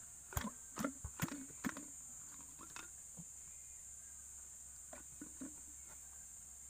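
Hand primer on a diesel fuel filter head being pumped by hand, giving short plastic clicks about twice a second for the first couple of seconds, then only a few faint clicks later on.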